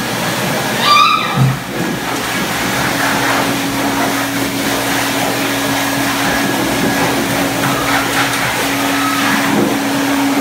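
High-velocity blow dryer at a self-serve dog wash station running steadily, a constant rushing blast with a steady hum under it. A short high cry sounds about a second in.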